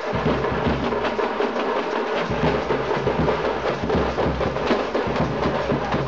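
Festival drums playing a fast, dense rhythm of sharp strokes.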